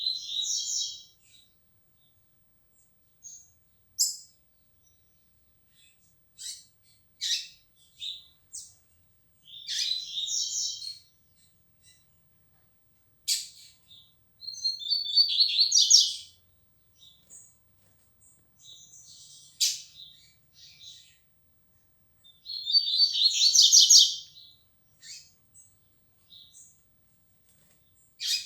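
Double-collared seedeater (coleiro) singing: four short song phrases of about two seconds each, with single chips between them. The song is still coming together and just starting to firm up.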